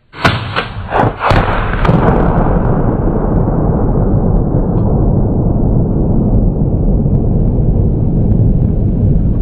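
A few quick rifle shots from an AK-47, then a tannerite explosive target going off in a loud, deep rumble that keeps rolling steadily.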